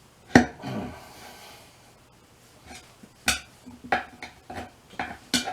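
Steel tire spoons clanking and scraping against the wheel rim while the last tight section of the tire bead is levered over the rim edge. Several sharp metal clanks, the loudest about half a second in, with a brief scrape after it.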